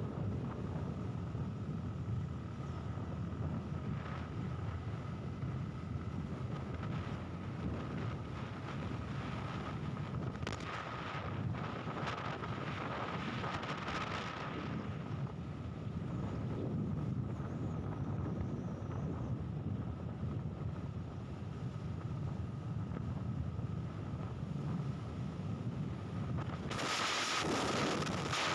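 Low steady rumble of a moving vehicle with wind buffeting the microphone, a faint steady whine running through it, and a louder gust of wind noise near the end.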